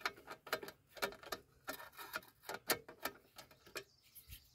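Klein 15-in-1 ratcheting screwdriver clicking as its ratchet is worked back and forth on a screw: a run of quick, irregular, faint clicks that stops near the end.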